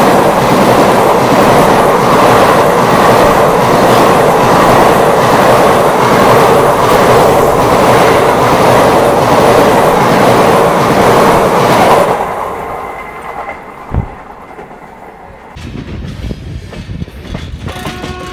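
Two passenger trains passing at speed on adjacent tracks, filmed from an open coach door: a loud rush and rattle of coaches going by close alongside, with a steady clatter of wheels over rail joints. About twelve seconds in the noise falls away sharply as the other train's end passes, leaving the quieter running of the train, with one sharp knock a couple of seconds later.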